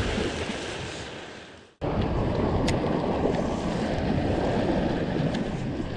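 Sea surf washing and breaking over shoreline rocks, fading almost to nothing a little under two seconds in. It then cuts back to a steady wash of waves, with wind buffeting the microphone.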